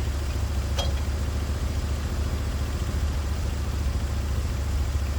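Sawmill engine running steadily, with one short click about a second in.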